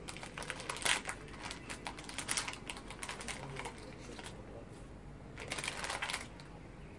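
Foil blind-bag packet crinkling and crackling in the hands as it is worked open, in irregular crisp crackles with louder flurries about a second in, around two seconds in, and again near six seconds.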